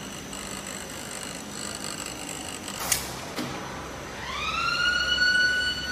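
Tissue-paper converting machinery running with a steady hum and high-pitched whine, with a single sharp click about halfway through. Then an electric motor spins up: a whine rising in pitch and levelling off, growing louder near the end.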